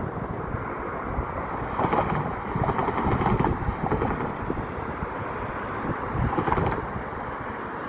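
Wind buffeting the microphone over a steady outdoor rumble, swelling louder about two to three seconds in and again around six seconds.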